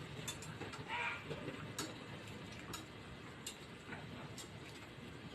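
Irregular light clicks and ticks of a knife blade working around the bone of a ham leg during deboning.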